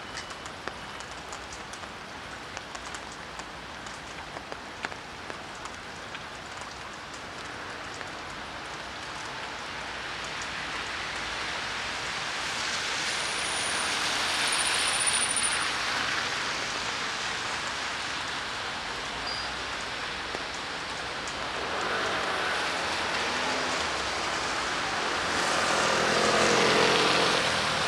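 Steady rain falling, with scattered drop ticks in the first few seconds. Vehicles pass on the wet street, with a rising hiss that swells about halfway through and again near the end.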